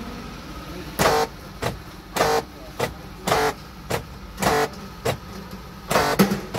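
Power door lock actuators of a 2018 Mitsubishi Xpander cycled repeatedly from the central-lock switch. The sound comes in about five pairs roughly a second apart, each a buzzy clunk followed half a second later by a shorter click. This is the noisy locking that is being checked on the front left door lock.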